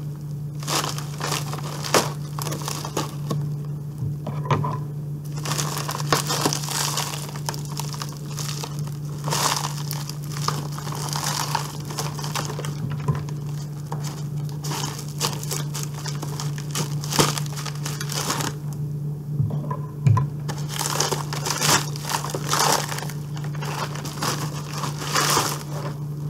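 Plastic mailer packaging crinkling and rustling in irregular bursts as it is cut open with scissors and pulled apart to get the tape out.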